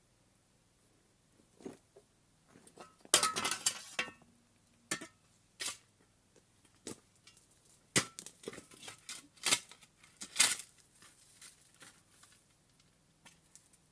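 Irregular knocks, clinks and rustles of objects being handled, with a dense burst of clattering about three seconds in and a few sharper knocks later on.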